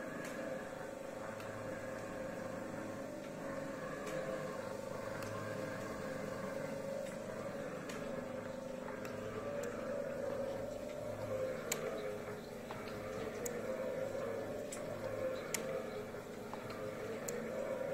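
Klopp mechanical shaper running, its ram stroking back and forth with a steady mechanical hum and a slow repeating pulse. Several sharp ticks come through in the second half.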